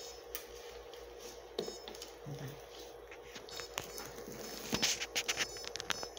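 Quiet room tone with a steady hum and scattered small clicks and rustles, with a quick run of sharper clicks about five seconds in.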